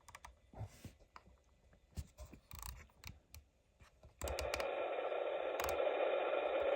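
Faint clicks and scratches, then, about four seconds in, the Xiegu G90 transceiver's speaker breaks into a steady hiss of band noise (static) on the 11-meter CB band, with faint steady tones in it.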